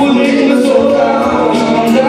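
Loud live amplified music, with several voices singing into microphones over the PA.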